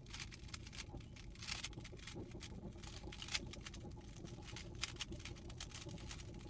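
3x3 Rubik's cube being handled and turned in the hands: irregular light plastic clicks, a few louder, over a low steady background hum.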